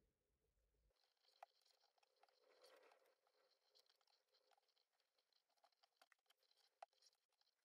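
Near silence, with a faint rustle and scattered small clicks of paracord being handled and pulled tight through a bar knot.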